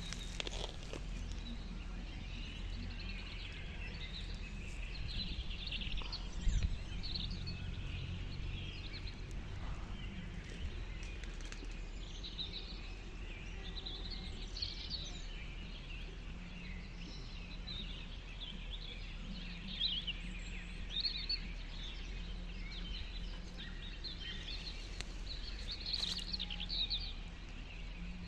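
Small birds chirping repeatedly in short, quick high notes over a steady low background rumble.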